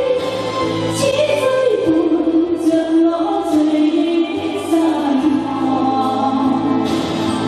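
A woman singing a slow Chinese love ballad into a microphone over a karaoke backing track, holding long notes.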